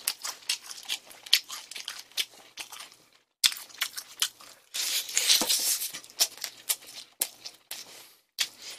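Close-up crunching and chewing of crispy fried chicken: a string of sharp crackles, with a denser stretch of crunching about five seconds in.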